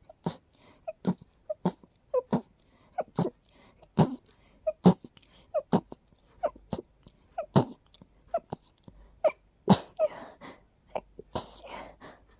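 A person sneezing in a rapid fit: short, sharp sneezes at about two a second, with breathy breathing between them near the end. It is an allergic reaction to smelling daisies.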